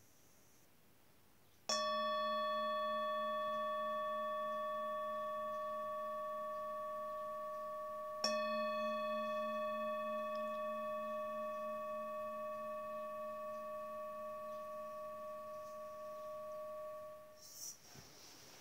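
Singing bowl struck twice with a wooden mallet, about six and a half seconds apart. Each stroke rings on in several overtones and fades slowly, the second with a gentle wavering beat, until the ring stops shortly before the end.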